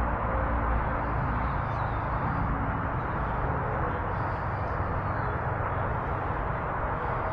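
Steady rushing outdoor background noise with no distinct event.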